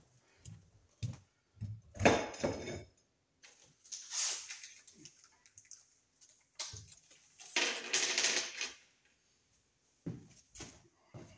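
Handling noise: scattered light clicks, knocks and rattles of small objects being picked up and moved, with a rustle lasting about a second near the eight-second mark.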